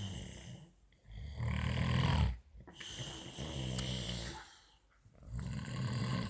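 A man snoring, one snore after another, each lasting about a second or so with short quiet gaps between them. The loudest snore comes about a second in.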